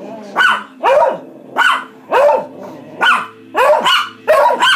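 A Chihuahua and a Beagle barking at each other in quick succession, about two short barks a second, each bark arching up and down in pitch.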